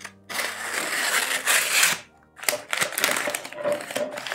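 A kraft-paper mailer being slit open with a utility knife, a continuous papery cut lasting about two seconds. After a brief pause the paper crinkles and rustles in irregular crackles as it is pulled open.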